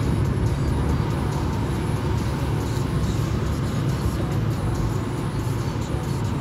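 Car on the move, heard from inside the cabin: a steady low engine and tyre rumble with road noise.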